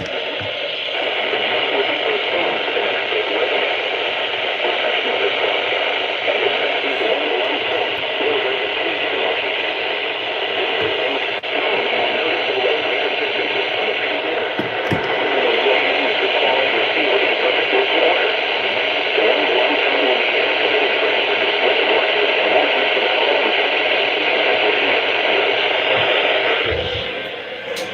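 Steady hiss of FM radio static from a software-defined radio receiver tuned to the NOAA weather radio band: a weak or empty channel with no voice coming through. It dips briefly near the end.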